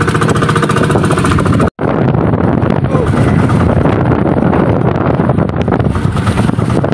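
Outrigger fishing boat's engine running steadily under way, mixed with wind buffeting the microphone and water rushing past the hull. The audio cuts out for an instant about two seconds in.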